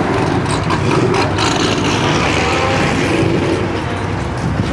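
A car engine running steadily with a loud, deep exhaust note.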